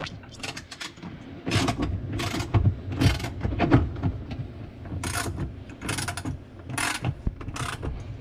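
Socket ratchet clicking in short, irregular bursts as it is worked back and forth, snugging down a nut on a dishwasher heating element until the element no longer wobbles and its seal tightens.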